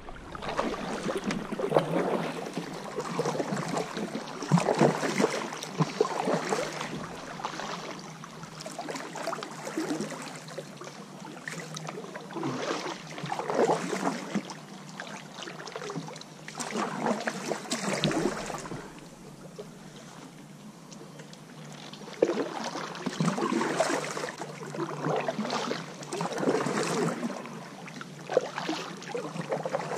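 Kayak paddle strokes in river water, coming in swells of splashing every second or two, with a lull about two-thirds of the way through.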